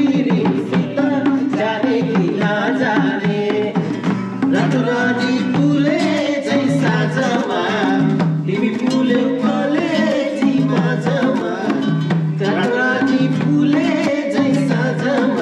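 Music playing throughout: a song with a singing voice over plucked strings and percussion.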